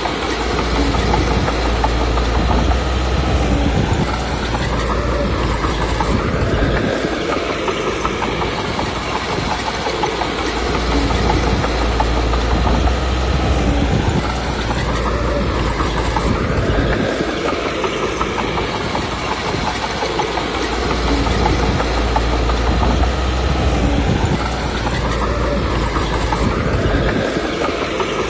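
Komatsu D21P bulldozer's diesel engine running with the clatter of its steel tracks, the deep rumble swelling and easing three times, about every ten seconds, as the machine works back and forth.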